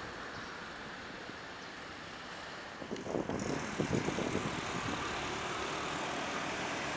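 Jet airliner engines as the planes come in to land, a steady rush that changes about three seconds in, when a Boeing 787 is heard on final approach. Wind gusts buffet the microphone.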